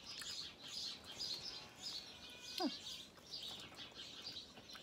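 Small birds chirping, a steady run of short high calls several times a second. About halfway through there is one brief falling vocal sound, like a short 'hm'.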